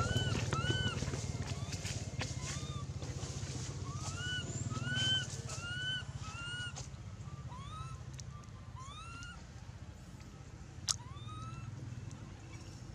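Infant long-tailed macaque giving a string of short squeaky coo calls, each rising then falling in pitch, at times two or three a second, growing fainter and sparser later on: the baby's begging cry. A single sharp click sounds about eleven seconds in.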